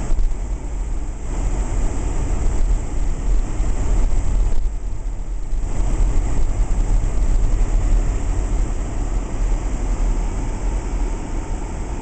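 Car driving slowly over snow-covered streets, heard from inside the cabin: a steady low rumble of engine and tyres with a hiss above it, which thins briefly about a second in and again around five seconds.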